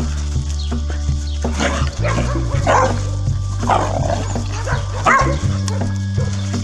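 Australian Kelpie puppies barking in short yaps as they play, several times over, over background music with steady bass notes.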